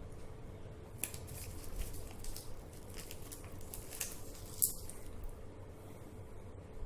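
A person drinking water in gulps: a run of short wet clicks and swallows, the sharpest about four and a half seconds in.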